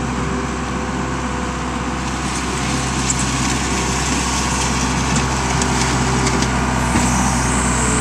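Case 1840 skid steer's diesel engine running steadily as the loader drives forward and scoops debris into its bucket, with its hydraulics working the bucket near the end.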